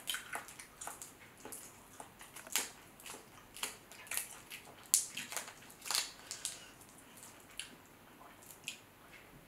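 A boiled whole shrimp being peeled by hand: its shell crackles and snaps in a run of short, sharp clicks with wet squishes. The clicks are densest in the first six seconds or so and thin out after.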